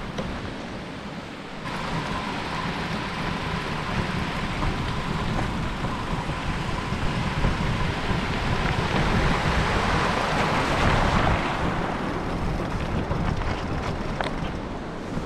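Riding noise of an e-mountain bike in motion: wind rushing over the microphone and tyre rumble, with a thin steady whine from about two seconds in that fades out after about nine seconds.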